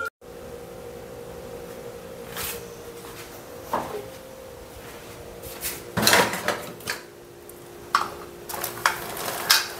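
Cookware and utensils clattering at a gas stove: a wok and spatula knocking, with several sharp knocks and clinks, the loudest a cluster about six seconds in and more near the end. A steady hum runs underneath.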